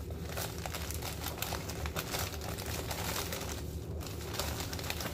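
Plastic bag crinkling and rustling as spoonfuls of seasoning are added to it, a dense crackle that pauses briefly a little before the end.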